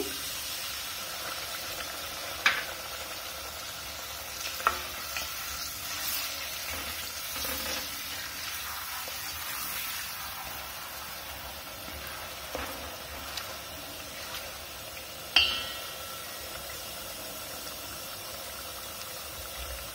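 Oily spice masala sizzling and bubbling in a steel pot, with soaked chillies and their soaking water just added, as it comes to a boil. A spoon stirs it and knocks on the pot a few times, the loudest knock ringing, about fifteen seconds in.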